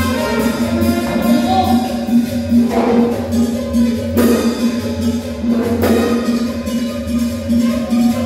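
Latin dance music with a steady beat, with a singing voice over it.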